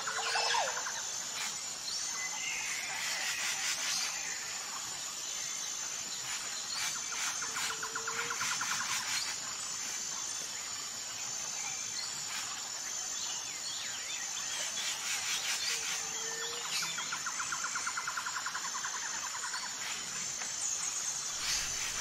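Outdoor nature ambience of bird calls and chirps with a faint high pulsing chirr behind them, the same pattern of calls repeating about every eight seconds like a looped recording.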